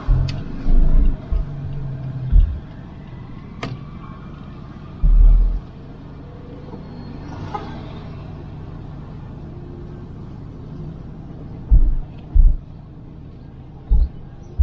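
Car on the move: steady low road rumble, broken by several short, heavy low thumps and a few sharp clicks.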